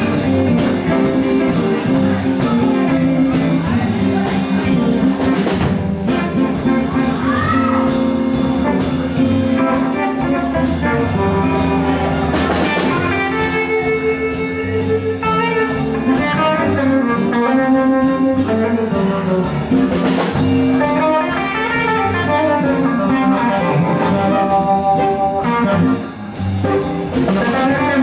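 Live blues band playing an instrumental stretch: electric guitar over a steady drum beat.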